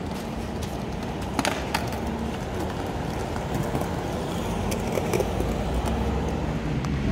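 City street traffic noise: a steady wash of passing road vehicles, the low rumble growing louder in the second half, with a few sharp clicks over it.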